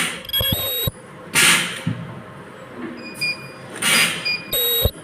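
Ultrasonic plastic welding machine running repeated cycles. Two short held weld tones, each about half a second, one near the start and one near the end, come between loud bursts of hissing air from its pneumatic press.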